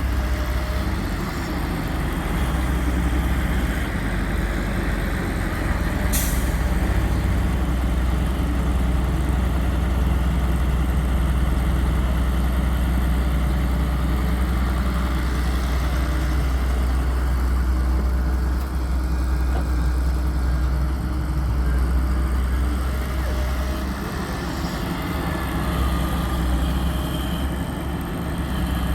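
Heavy diesel engines of a JCB backhoe loader and a dump truck running steadily with a low rumble, and a brief high hiss about six seconds in.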